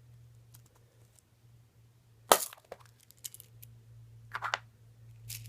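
A surprise egg cracked open by hand: one sharp crack a little over two seconds in, followed by smaller clicks and rattles as the shell is pulled apart.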